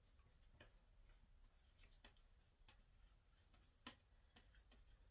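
Near silence, with the faint scratches and ticks of a felt-tip marker writing on a plastic plant label; one tick, a little louder, comes near the end.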